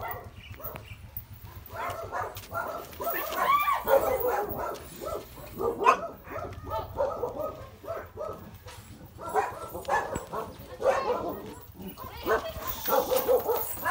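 A dog barking over and over, in runs with short pauses between.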